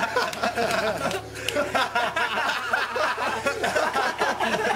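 A group of young men laughing and chuckling together, their voices overlapping.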